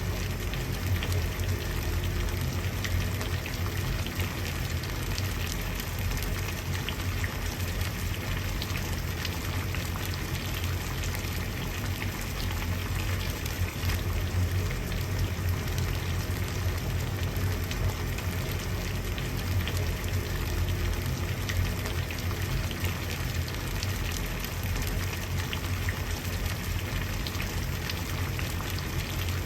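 Water at a rolling boil, a steady dense bubbling with a low rumble underneath.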